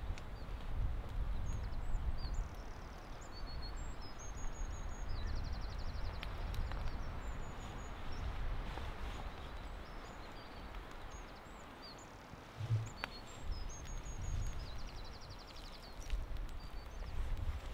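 Outdoor rural ambience: small birds chirping high up, with a few buzzy trills, over a low, uneven rumble and a few faint clicks.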